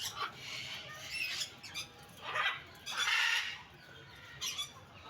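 Birds calling: about half a dozen short squawking calls spaced over a few seconds, the longest about three seconds in.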